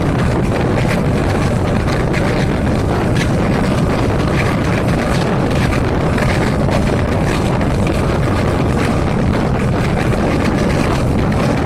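Diesel railway engine running steadily, a dense even rumble with wind noise over it.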